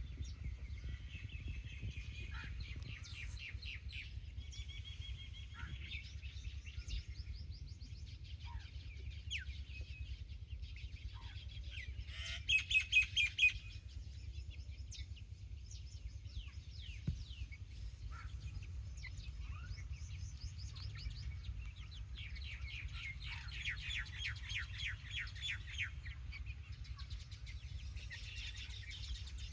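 Chicks peeping in rapid runs of short, high chirps, with a louder burst of about six peeps near the middle, over a steady low rumble.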